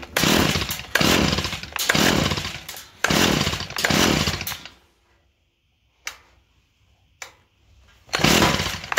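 Recoil starter of a two-stroke hedge trimmer being pulled over and over on a cold, choked engine: five whirring pulls about a second apart, a pause with two small clicks, then the pulling starts again near the end. The engine turns over but does not catch.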